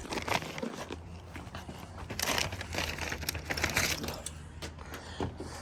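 Crinkling and rustling of something being handled, strongest about two to four seconds in, with a few light clicks over a low steady hum.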